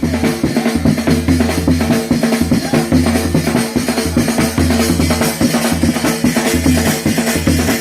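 Loud music with a heavy drum beat: bass drum, snare and other percussion over sustained bass notes.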